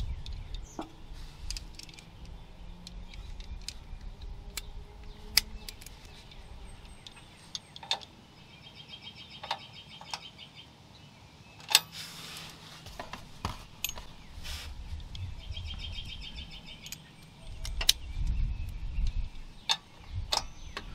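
Scattered metallic clicks and knocks of a wrench and socket extension being worked on a tight exhaust hanger bolt under a car, with low handling rumbles. A bird trills briefly twice in the background.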